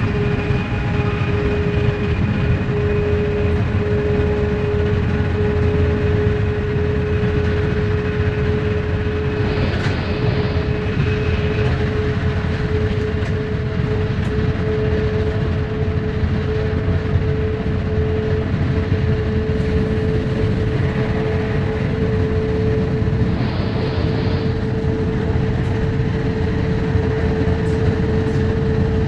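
AVE high-speed train heard from inside, running at speed: a continuous low rumble and rushing noise with a steady humming tone that drifts slightly up in pitch. Twice a brief, brighter hiss swells up, about ten seconds in and again near twenty-four seconds.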